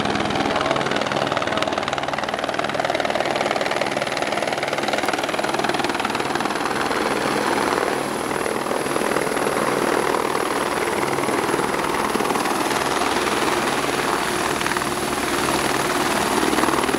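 Helicopter flying in close to land, its rotor and engine running loudly and steadily with a thin high whine over the noise.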